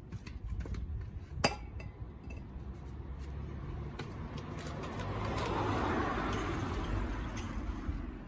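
Small clinks and clicks of hard objects being handled during a car oil change, with one sharp click about one and a half seconds in. A rushing noise swells from about four seconds in and fades away near the end.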